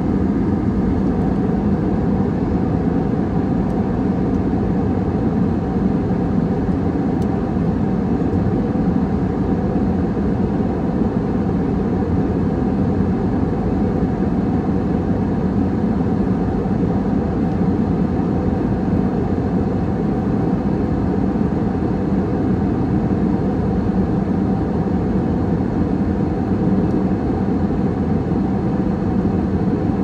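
Jet airliner cabin noise in cruising flight: the steady, even, low-pitched noise of engines and airflow heard from inside the cabin, with a faint constant hum beneath it.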